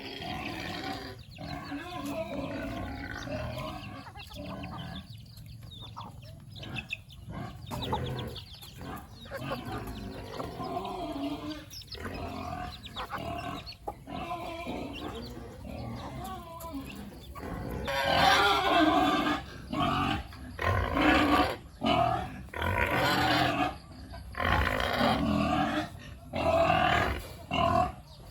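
Pigs grunting and calling, with a run of louder calls in quick succession in the last third.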